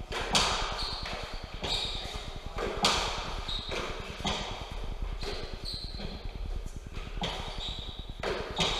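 A fives rally: a small hard ball is struck with gloved hands and smacks off the concrete court walls, about one sharp echoing hit a second, with short squeaks of shoes on the court floor between the hits.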